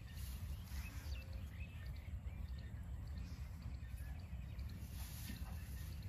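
Open-air field ambience: a steady low rumble of wind on the microphone, with faint bird chirps and a brief quick trill over it.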